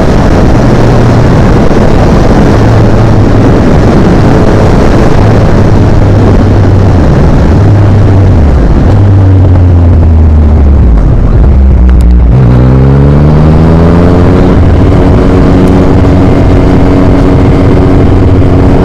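Yamaha MT-09 inline-three with an Akrapovic exhaust running under way, with heavy wind rush on the microphone. Its note drops as the bike slows, then climbs again from about twelve seconds in and holds steady near the end.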